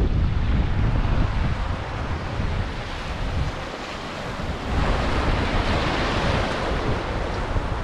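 Wind buffeting the camera microphone over the rush of river water. About five seconds in the hiss of the water grows louder as the raft runs through choppy riffle water.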